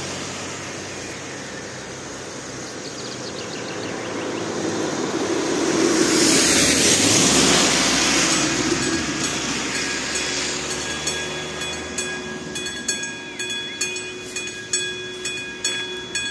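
A car drives over the level crossing on a wet road, its tyre noise loudest about six to eight seconds in. From about eleven seconds the crossing's electronic warning bell rings with evenly spaced strikes, signalling that the crossing is closing for an approaching train.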